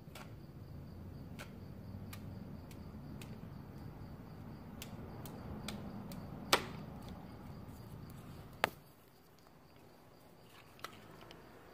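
Light handling clicks and taps, with two sharp clicks about two-thirds of the way through, over a steady low hum that drops away right after the second click.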